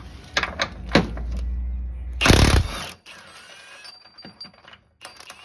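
Metal clicks and knocks of hand tools and loose bolts, with a low hum and a loud, rattling burst of noise about two and a half seconds in, then a few faint clinks.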